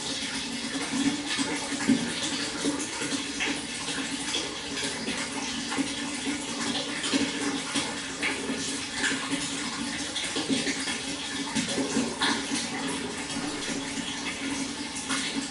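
Flowing water running steadily, with many small splashes throughout.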